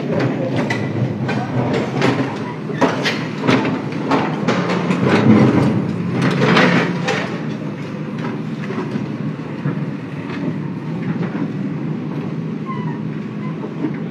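A JCB backhoe loader's diesel engine runs under load while its bucket breaks into a brick house wall, with a quick run of cracks and crashes of masonry giving way in the first seven seconds or so. After that the engine keeps running, with only a few scattered knocks.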